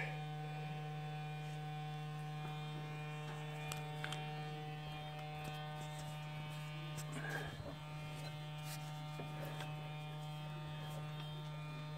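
Metal lathe running steadily during a boring cut in a cracked cast part: a steady electric hum with a stack of even overtones.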